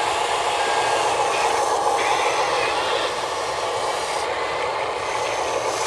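Huina 580 RC excavator's motors and gear drives whirring steadily as the upper body slews round and the arm lifts the bucket; the whir eases a little about three seconds in.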